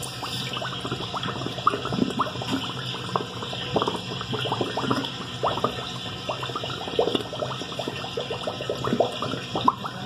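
Water gurgling and bubbling down a floor drain's sewer pipe, with many short bubbling pops: the drain, just unclogged, is taking the water away.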